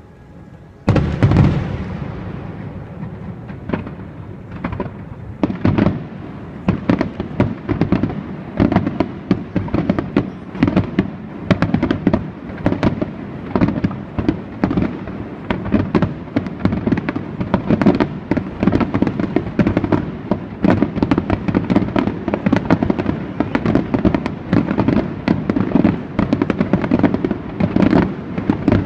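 Aerial fireworks: a single big shell bursts about a second in, then from about five seconds a rapid barrage of bursts, several bangs a second.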